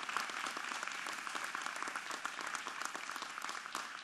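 A crowd applauding, many hands clapping, thinning slightly toward the end.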